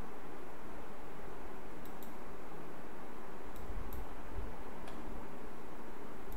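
A computer mouse clicking about six times, singly and in quick pairs, over a steady background hiss and hum.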